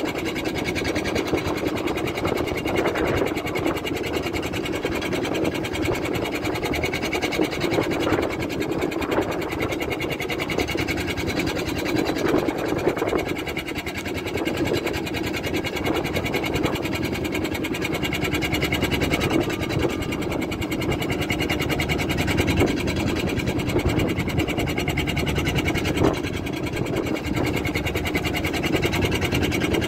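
Fishing boat's engine running steadily at idle, an even mechanical hum with no change in speed.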